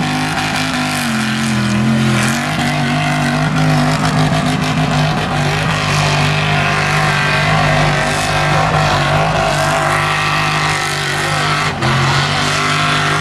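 Lifted mud-bog pickup truck engines at high revs, working through a mud pit. The engine note swings up and down for the first couple of seconds, then holds high and steady, with a brief drop in revs near the end.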